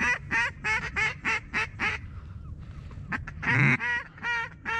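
Mallard quacking: a quick, even run of about six quacks, about three a second, then a short pause and a few longer, louder quacks near the end.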